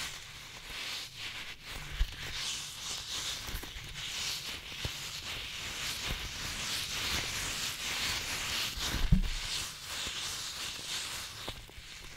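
Close-miked ASMR handling sounds: a small plastic object rubbed and scratched with the fingers right at the microphone, giving a steady crackly hiss. Two soft low thumps, about two seconds in and near nine seconds in, are likely the object or the hands knocking against the mic.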